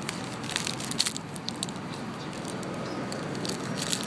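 Grey squirrel gnawing a nut close by, sharp crisp crunching clicks in a cluster about a second in and again near the end, over a steady background hiss.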